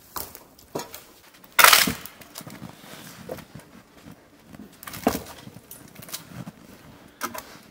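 Boots crunching through deep snow while a long dead wooden pole is carried, with a handful of sharp crunches and knocks, the loudest about two seconds in.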